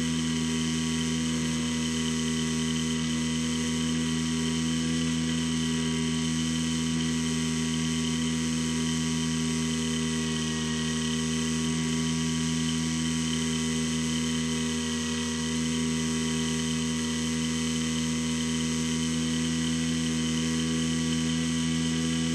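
Skywalker X7's electric pusher motor and propeller running at a steady throttle, a continuous whine made of several held tones.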